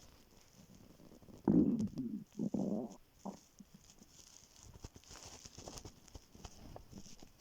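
Empty human stomach growling from hunger: a loud gurgling rumble about a second and a half in, lasting about a second and a half in two parts. A short gurgle follows, then faint small crackles.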